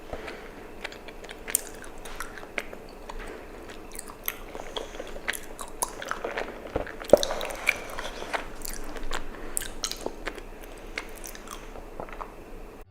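Close-up mouth sounds of chewing chewy tapioca pearls from bubble tea: sticky wet smacks and clicks, with one sharper smack about seven seconds in.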